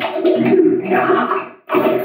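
Cartoon cereal crunching and chomping, heavily distorted by audio effects. It comes as a run of chunky bites that breaks off briefly near the end.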